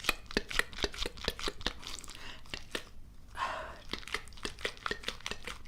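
Close-miked ASMR mouth sounds: a rapid, irregular run of wet clicks and pops, several a second, with one short breathy sound about three and a half seconds in.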